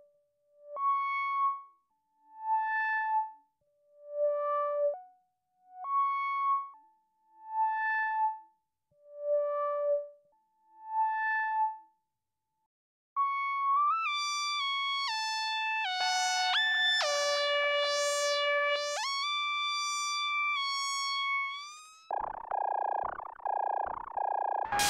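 Behringer CAT analog synthesizer loops, played dry without delay. The first loop is a slow line of single notes, each swelling in and fading out, jumping between pitches. After a brief gap, a second loop plays sustained, overlapping tones that glide between pitches, and near the end a buzzier, lower tone takes over.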